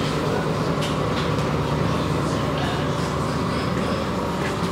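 Steady drone of the Seixalense cacilheiro ferry's engines heard inside its passenger cabin while under way, with a few faint clicks and rattles over it.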